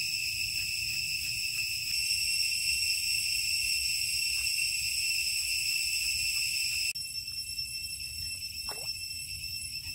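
A steady, high-pitched drone of forest insects that changes in tone about seven seconds in, with a few faint ticks beneath it.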